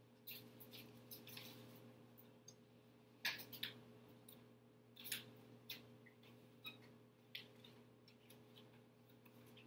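Faint rustling of papers and scattered light clicks and taps as papers and a pen are handled at a table, over a steady low room hum.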